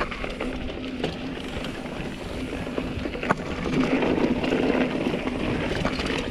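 Mountain bike rolling fast down a dirt singletrack: tyre noise on the trail and wind rushing over the camera microphone, with a few sharp clicks and rattles from the bike over bumps, getting louder about four seconds in.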